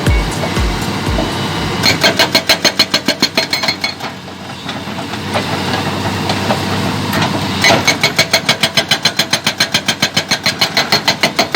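Hydraulic rock breaker on an excavator hammering in rapid, even blows, about ten a second. It goes in two bursts, the first about two seconds in and the second from near eight seconds on, with the machine running more steadily between them.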